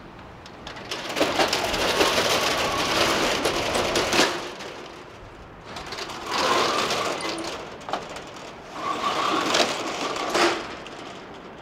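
Outdoor street noise that swells up and fades away three times, with short clicks in the louder stretches.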